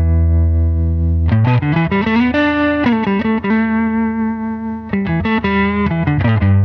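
Electric guitar, a 1991 Fender Stratocaster with Texas Special single-coil pickups, played with light overdrive from a Vemuram Jan Ray pedal into a Fender '64 Princeton Reverb amp. A held note rings, then a quick run of notes comes about a second in and again near the end, with sustained notes between.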